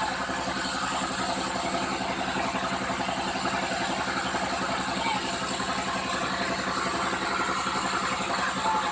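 An engine running steadily at idle with a fast, even pulse, typical of a sawmill's machinery engine ticking over between cuts.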